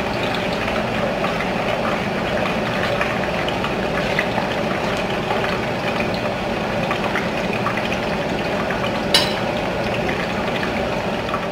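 Hot oil sizzling steadily in a frying pan with two metal kembang loyang rosette molds heating in it, over an even rushing noise, with one sharp click about nine seconds in.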